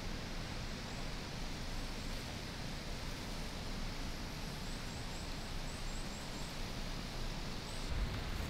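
Forest ambience: a steady outdoor hiss, with a quick run of faint, high-pitched chirps from a small bird or insect about five seconds in. Low wind rumble on the microphone near the end.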